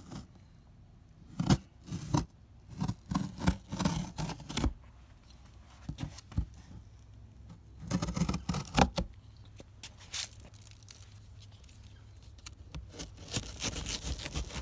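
Pocket knife slicing through packing tape on a cardboard box: irregular runs of short scraping, tearing cuts with pauses between, busiest in the first few seconds and again near the end.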